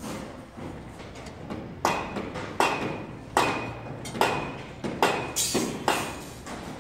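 Hammer blows on metal at a building site, about seven sharp ringing strikes roughly one every three-quarters of a second, starting about two seconds in.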